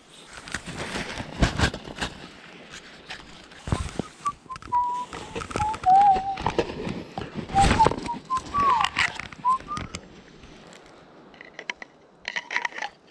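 A person whistling a short, wandering tune, surrounded by knocks and rustles of gear being handled. Near the end come a few light clicks of a knife against its plastic sheath.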